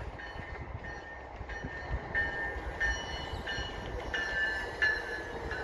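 Railway warning bell ringing in even strokes, about three every two seconds, as a commuter train approaches the station.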